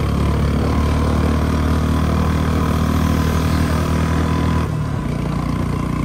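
Royal Enfield Bullet 350's single-cylinder engine running steadily under way, heard from the rider's seat. The deep low end of the engine sound drops away suddenly about three-quarters of the way through.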